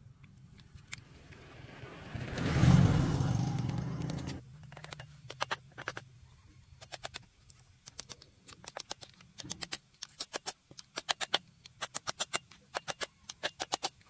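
A hammer tapping a chisel held against a cast-iron truck steering gear housing: quick, sharp metal-on-metal taps, several a second, in runs. Before the tapping, a loud rush of noise swells and stops abruptly about four seconds in.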